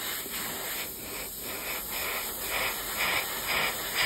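Airbrush hissing as it sprays thinned acrylic paint, switching on and off in short bursts in the second half.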